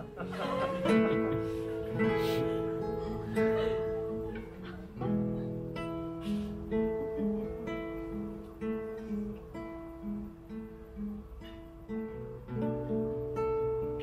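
Instrumental break of a live acoustic song without singing: plucked chords in a steady rhythm, changing chord about five seconds in and again near the end.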